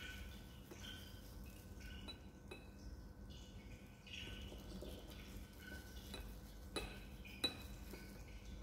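Glassware clinking as a small glass conical flask knocks against a glass funnel while the sonicated CNT dispersion is poured. There are faint light taps throughout and two sharp clinks a little over halfway through.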